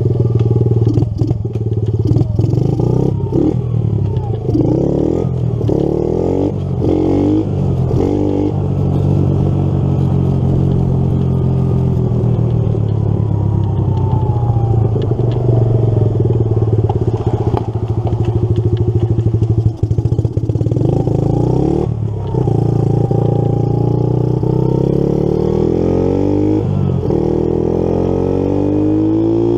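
Kawasaki KLT 110 three-wheeler's small four-stroke single running under way, its pitch climbing and dropping repeatedly as it is revved up through the gears and eased off between shifts. Short knocks and rattles come over the rough gravel in the first several seconds.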